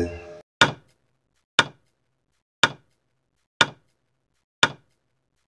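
Countdown-timer tick sound effect: five sharp ticks, one a second, counting down the seconds before the quiz answer is revealed.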